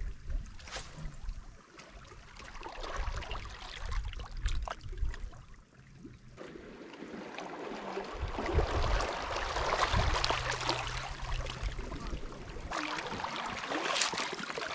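Shallow seawater lapping and trickling among rocks at the shoreline, with low wind rumble on the microphone. Near the end a foot splashes into the shallows.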